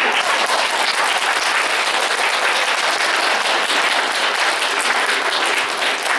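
A concert-hall audience applauding at the end of a comic monologue: dense, steady clapping.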